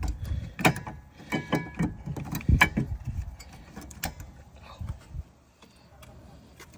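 Rear brake caliper of a 2012 Honda CR-V being fitted back over new brake pads: a series of metallic clinks and knocks, a few sharp ones with a brief ringing tone, going quieter near the end.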